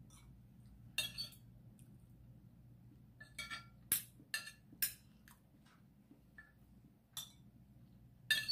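Metal spoon and fork clinking and scraping against a ceramic plate and bowl while eating, in a run of sharp, irregular clinks, the loudest near the end.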